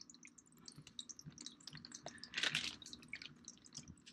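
Faint water dripping and splashing into a home aquarium, with a louder splash about two and a half seconds in.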